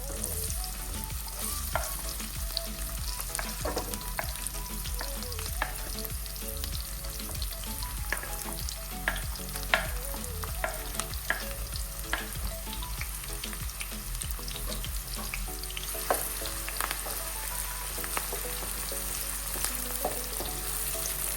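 Sliced onions frying and sizzling steadily in a pan, with a utensil stirring and scraping against it every so often.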